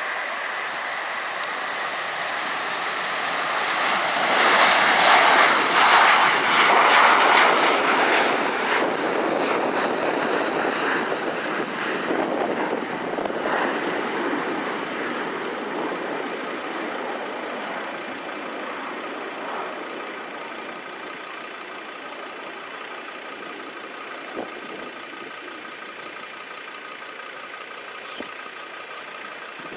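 Boeing 747-400's four jet engines at takeoff thrust as it climbs out. The noise builds to its loudest about five seconds in, then fades slowly as the jet climbs away.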